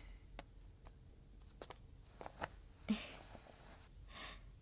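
Quiet room with a few faint scattered clicks and two brief soft rustles, about three seconds in and near the end, like small objects being handled.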